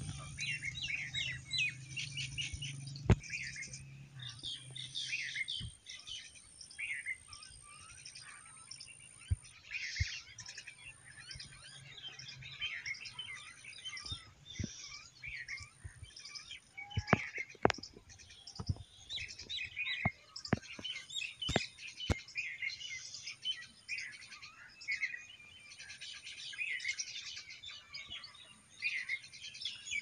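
Many small birds chirping and twittering at once, short overlapping calls with barely a pause. Scattered sharp clicks come through, mostly between about 14 and 22 seconds in.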